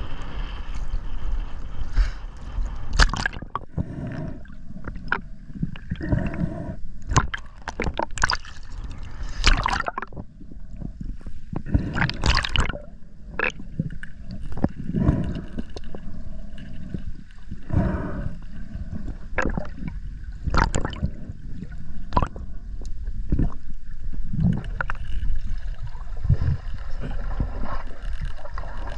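Water gurgling and bubbling during a freedive, broken by irregular sharp clicks and knocks.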